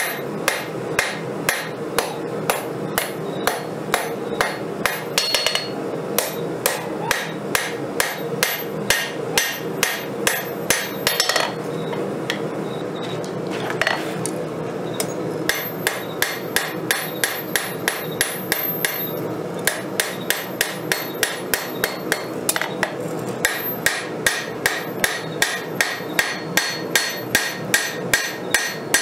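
Hand hammer striking hot 5160 spring steel on an anvil, forging a knife blade: a steady run of blows at about two to three a second, with a few seconds' pause about twelve seconds in. A steady hum runs underneath.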